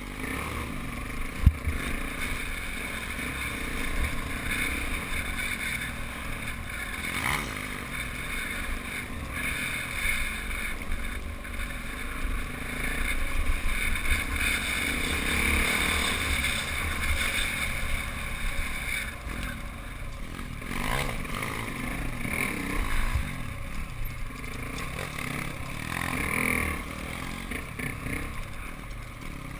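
Pit bike's small single-cylinder engine running under way, its level rising and falling with the throttle, with a steady low rumble of wind on the microphone. A sharp knock about one and a half seconds in.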